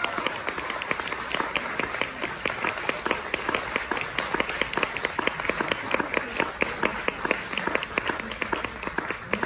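Audience applauding: many hands clapping densely and unevenly, at a steady level.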